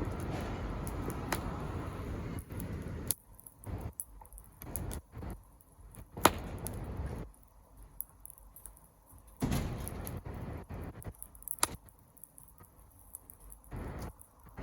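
Wood bonfire burning with scattered sharp crackles and pops, a few seconds apart, the loudest about six seconds in, over a low rumble that swells and fades.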